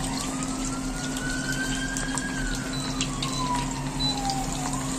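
Hot oil sizzling steadily around a large whole fish frying in a wok, with scattered small pops and a steady low hum underneath.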